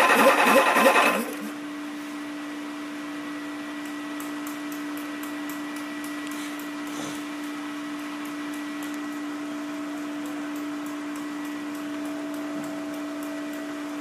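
Rebuilt Daimler-Benz 442LA diesel being cranked on its starter, a loud rhythmic churning of compression strokes that stops suddenly about a second in, before the fuel system has purged its air and the engine fires. After that a steady, even-pitched machine hum with faint quick ticking carries on.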